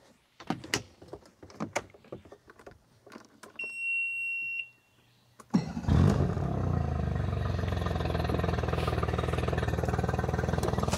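Footsteps and knocks on a boat deck, then a steady beep for about a second as the key is switched on. About five and a half seconds in, a Mercury 40 hp four-stroke outboard starts and idles steadily in neutral while being flushed with fresh water on muffs.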